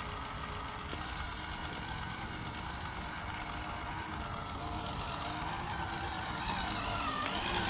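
The electric motor and geared drivetrain of a Vaterra Ascender Chevrolet K-5 Blazer RC crawler, whining steadily as it crawls over dirt. The pitch dips and rises near the end as the throttle changes.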